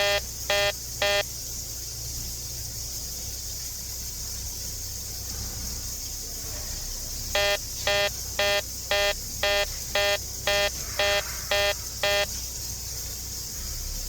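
An electronic beeper in a house giving short, buzzy beeps about two a second: three at the start, then after a pause of about six seconds a run of ten. This is the unexplained beeping turned up during the home inspection.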